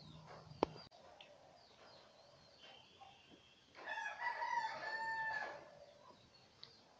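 A rooster crowing once, a single held call of about two seconds near the middle, over faint bird chirps; a sharp click sounds near the start.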